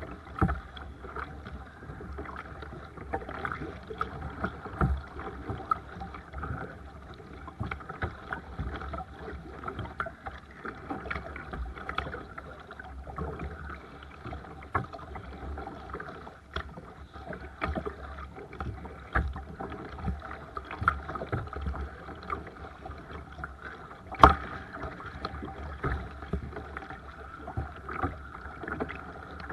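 Water splashing and lapping around a Seabird Discovery sea kayak being paddled, with irregular splashes and knocks from the paddle and hull. One sharper knock comes about three-quarters of the way through.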